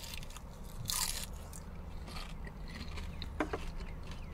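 A mouthful of crispy fried chicken being bitten and chewed, with a loud crunch about a second in and softer crunches after.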